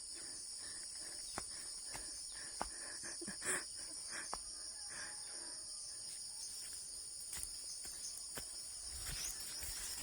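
Steady, high-pitched chorus of crickets and other insects, with a few scattered light clicks and taps.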